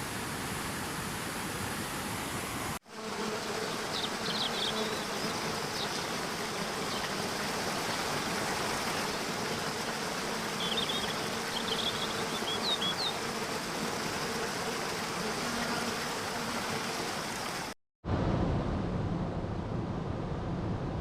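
Steady rush of flowing water from a stream or waterfall, the recording changing twice with brief dropouts. In the middle stretch a faint steady hum sits under the water, and a bird chirps in short bursts a few times.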